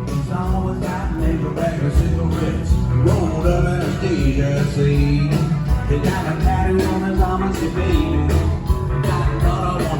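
Live band playing a song on stage, with a steady beat.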